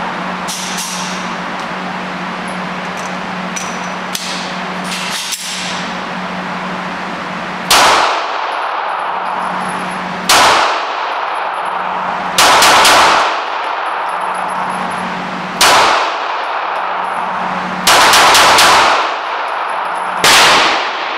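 Gunfire at a shooting range: loud single shots and quick strings of three or four, each with a ringing, metallic-sounding tail, over a steady low hum. Fainter shots come in the first few seconds.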